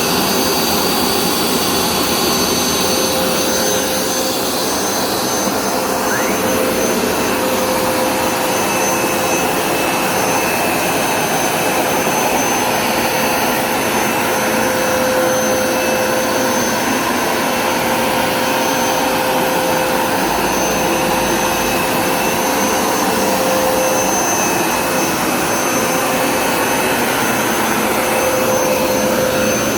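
Hoover Smartwash Pet Complete carpet cleaner running steadily: a loud rush of suction with a steady whine over it.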